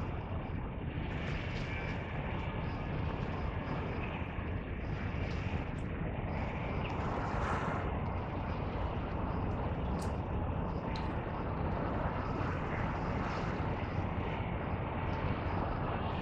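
Steady low background rumble of distant engine noise, swelling slightly about halfway through.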